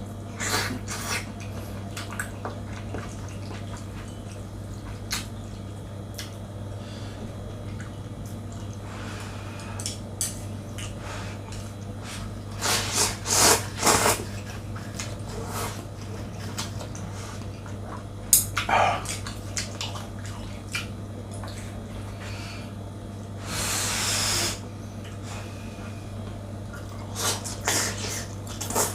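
Close-up eating sounds of instant noodles: wet slurping and chewing, with a cluster of louder slurps near the middle, a sharp click about two-thirds of the way in, and one longer slurp a little after it. A steady low hum runs underneath.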